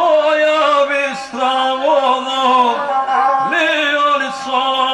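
A guslar singing a Serbian epic song in a chanting male voice, holding long notes with short breaks, to his own gusle, the one-string bowed folk fiddle, which drones along under the voice.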